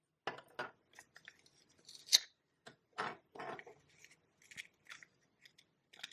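Plastic toy food being handled: scattered short rustles and clicks, with one sharper click about two seconds in.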